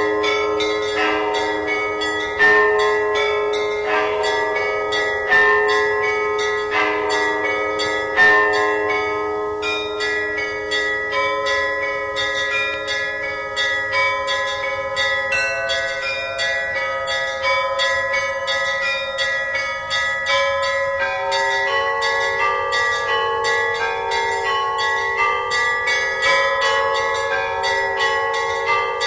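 Church bells being rung, several bells of different pitch struck in quick succession, each ringing on. Heavier strokes fall about every three seconds in the first third, then the lighter bells keep up a quicker, even chiming.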